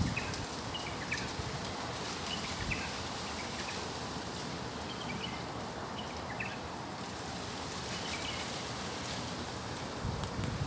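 Strong wind blowing steadily, a rushing noise of gusts through trees and leaves, with a few short high chirps scattered through it.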